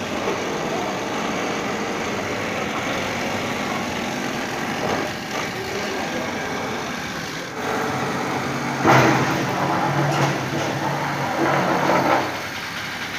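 Machinery running steadily, engine-like, with a louder stretch that holds a steady low hum from about two-thirds of the way in until near the end.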